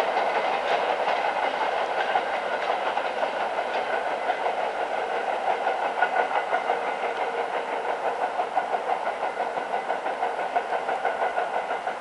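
A train running past on the rails, its wheels clattering rhythmically over the rail joints, slowly fading as it draws away.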